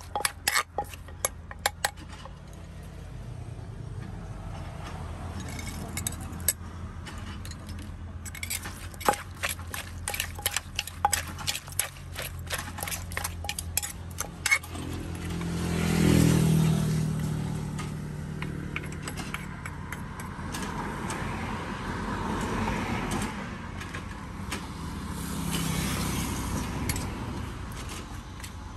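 Utensils clinking and tapping against dishes in quick, irregular strikes. About halfway through, a motor vehicle passes close by, swelling and fading, and more traffic swells twice near the end.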